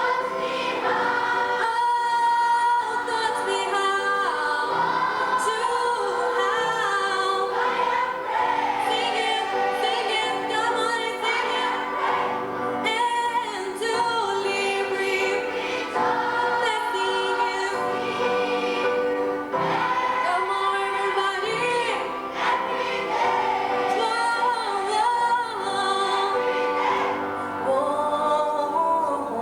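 A choir singing with musical accompaniment, many voices together in sustained melodic lines.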